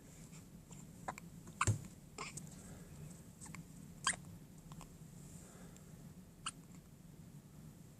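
Newborn baby hiccuping: several short, squeaky hiccups at irregular intervals, the loudest about two seconds in, over a faint low room hum.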